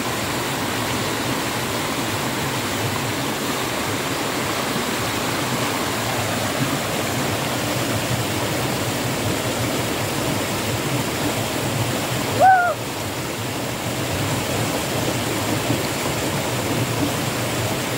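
Steady rush of river water running over rapids, with one short call about two-thirds of the way through.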